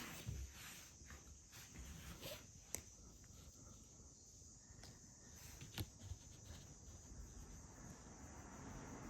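Near silence with a few faint soft taps and two sharper clicks, about three and six seconds in.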